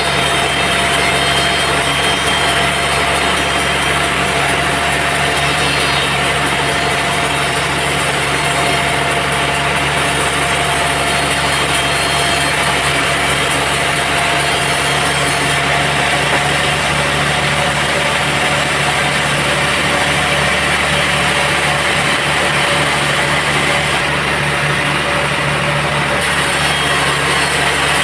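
Sawmill band saw and its machinery running steadily, a continuous loud drone with a few steady tones, as the teak timber is worked.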